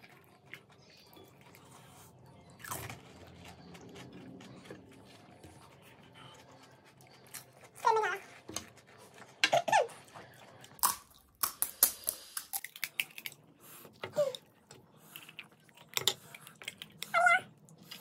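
Close-up eating sounds of panipuri: crisp hollow shells cracking and crunching in the mouth, and the spiced water slurped, with several short squeaky sounds that fall in pitch. It is quiet for the first several seconds, and the cracks and slurps come thick from about halfway in.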